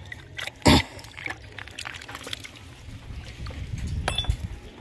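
Water trickling and splashing at a newly fitted pipe clamp, which is leaking despite its gasket. There is a sharp knock under a second in and small clinks of metal.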